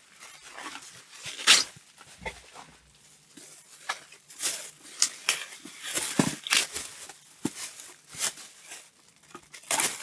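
Plastic packaging crinkling and tearing as a plastic project box is unwrapped and handled, with irregular rustles and small knocks.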